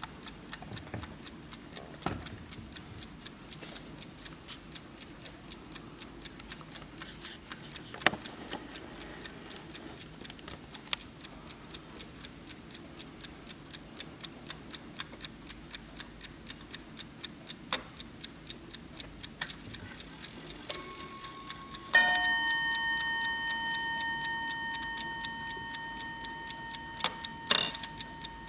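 Aug. Schatz & Söhne mechanical mantel clock movement ticking steadily, with a few sharper clicks. About two-thirds of the way through, the striking hammer hits once loudly, and the ringing tone with several high overtones slowly fades. A second, lighter strike comes near the end.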